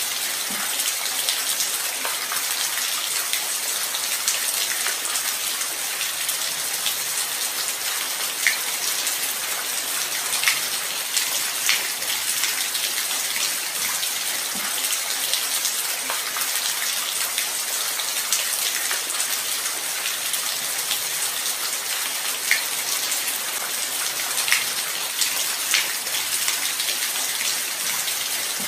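Steady light rain falling, an even hiss with a few louder, sharp drop hits scattered through it.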